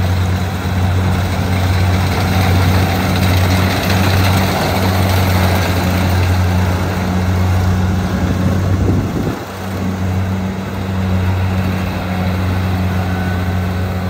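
Kubota rice combine harvester's diesel engine running steadily while it cuts and threshes rice: a loud, deep, steady hum with a broad mechanical rush over it. The sound briefly drops about nine seconds in, then carries on.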